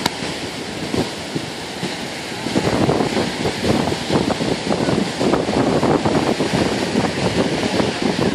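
Small waves breaking steadily on a lake beach, with wind on the microphone. The gusty rumble of the wind grows louder about two and a half seconds in.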